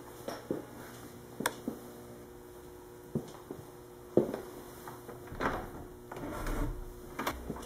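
Footsteps on a hard floor, a single thump a little past halfway, then a brass doorknob rattling and a latch clicking as a wooden door is opened, over a faint steady hum.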